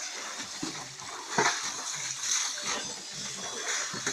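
Muddy water and wet mud splashing and splattering as they are poured out of a metal pail into a dug pit, in several short splashes.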